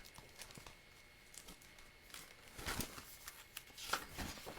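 Faint rustling and small clicks of a picture book's paper pages and cover being handled, busier in the second half.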